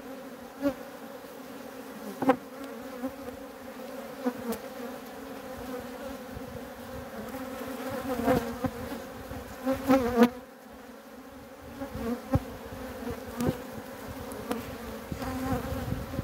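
Honeybees buzzing steadily in an open hive, a colony the beekeeper calls bad-tempered. Scattered sharp clicks and knocks of wooden frames being pried loose with a hive tool cut through the buzz, loudest about eight to ten seconds in.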